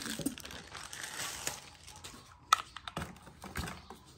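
Hands handling a monitor's external power adapter brick and its cable in styrofoam packaging: a soft rustle, then several sharp clicks and taps in the second half.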